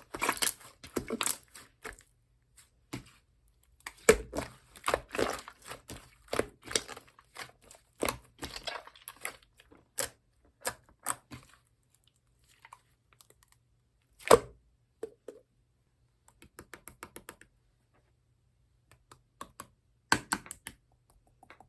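Slime handled by hand: sticky clicks, pops and crackles in irregular bursts as it is pressed, folded and pulled apart, with one sharper snap about two-thirds of the way through.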